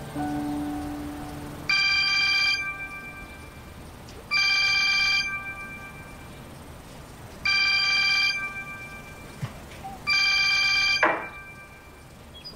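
Mobile phone ringing with an electronic ringtone: four identical rings, each just under a second long, about every two and a half to three seconds.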